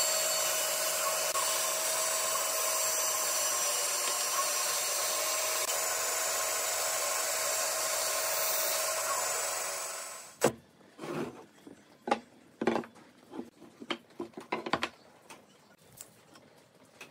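Bandsaw running and cutting through a round end-grain block tabletop, a steady whine over a hiss. It cuts off suddenly about ten seconds in, and a scatter of light taps and knocks follows.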